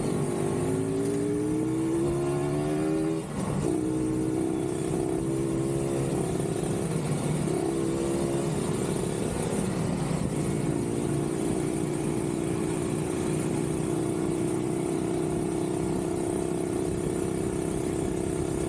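Kawasaki Ninja 150RR's two-stroke single-cylinder engine accelerating through the gears, its pitch climbing in steps with a short dip at a shift about three seconds in, then running at a steady pitch while cruising.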